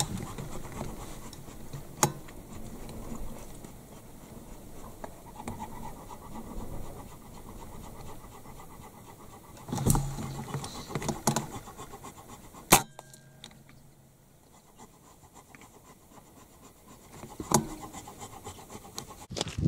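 Low outdoor rustle and handling noise broken by several sharp clicks and knocks. The loudest is a single sharp crack about thirteen seconds in, after which the background suddenly drops away.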